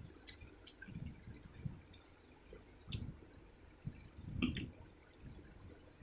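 Soft, wet squishing and clicking of fried egg being torn apart by hand and eaten, in irregular bursts, with a louder bump about four and a half seconds in.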